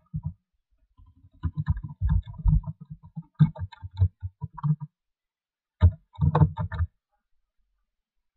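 Typing on a computer keyboard: a quick run of key clicks, a pause about five seconds in, then a shorter run of clicks.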